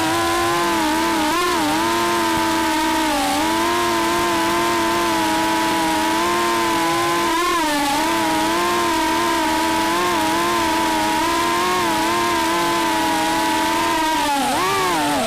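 FPV racing quadcopter's brushless motors whining in flight, holding a steady pitch with brief dips and rises as the throttle changes, and a larger swoop near the end.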